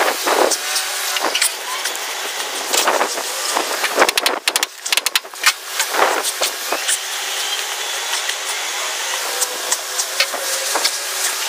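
Scattered sharp metal clicks, taps and knocks of hand work fastening a cowl lacing strip with small nails or screws, over a steady hiss. A quick run of clicks comes about four to five seconds in.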